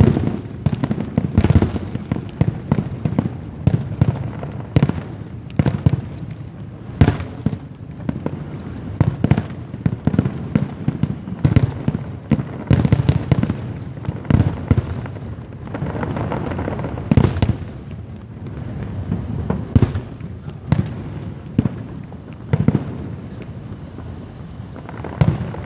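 Aerial fireworks bursting in rapid, irregular succession: sharp bangs, often several a second, over a continuous low rumble. A brief lull comes about two-thirds of the way through, and a few single louder reports follow near the end.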